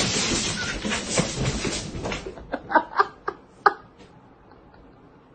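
A sneeze: a sudden blast of breath noise that trails off over about two seconds, followed by four short, high, squeaky bursts.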